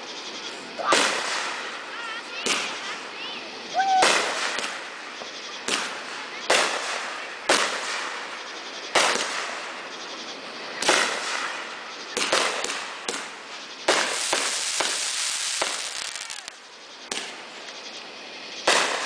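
Aerial fireworks bursting overhead: a series of sharp bangs roughly a second apart, each trailing off, with a longer stretch of dense hissing about two-thirds of the way through.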